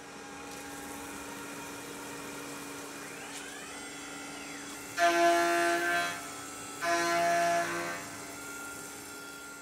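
CNC milling on a Tormach mill with its microARC 4th-axis rotary chuck: a steady spindle hum with pitch that rises and falls near the middle, then two cuts of about a second each into the round-bar clamp, each a loud, high-pitched whine.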